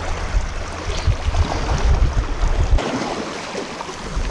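Wind gusting across the microphone in a low rumble that drops away briefly a little after halfway, over small waves washing and lapping against the rocks below.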